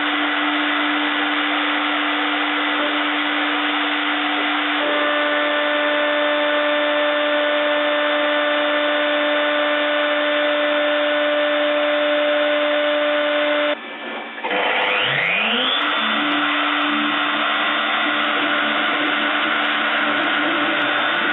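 Spindle of a small CNC milling machine running with a steady whine as a 2 mm ballnose cutter makes the roughing pass on a PVC pipe turning on the rotation axis. About two-thirds through, the sound drops out briefly and a motor spins up with a fast rising whine, then settles back to steady running.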